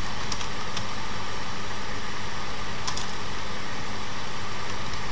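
Steady hiss and low hum of background noise, with a few faint computer keyboard keystrokes, about three scattered clicks.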